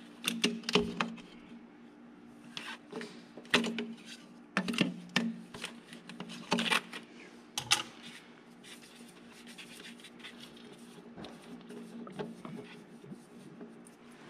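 Plastic fuel filter bowl being worked loose from a diesel engine, with a strap wrench and then by hand: scattered clicks, knocks and rubbing of the bowl and wrench against the filter housing, over a faint steady hum.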